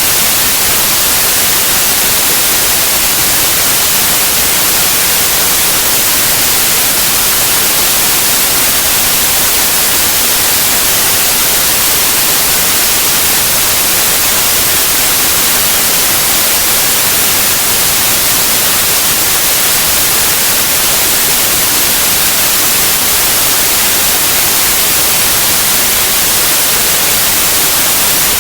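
Steady, loud white noise: an even, unbroken hiss across the whole range of pitch, strongest in the highs, with no change or events.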